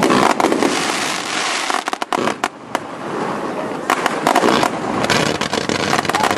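Firework fountains spraying sparks, a dense run of crackling and sharp pops. It thins out about two seconds in and builds again from about four seconds.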